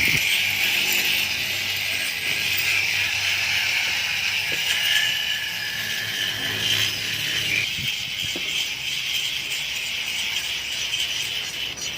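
Small high-speed rotary grinder running with a steady high whine while grinding metal.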